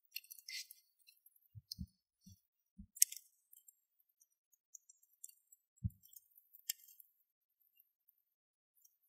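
Small wood fire crackling and popping in scattered sharp clicks, the loudest about three seconds in, with a few soft low thumps in between.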